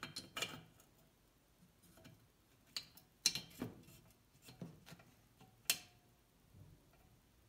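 Small metal valve parts clicking and tapping against the generator engine's cylinder head as they are fitted by hand: a scattered series of sharp clicks, the sharpest near the end with a brief metallic ring.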